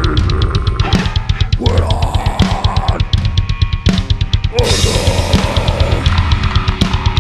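A death metal band playing live: very fast double-kick bass drum and steady cymbal strokes under a dense wall of distorted guitar, with growled vocals coming in and out.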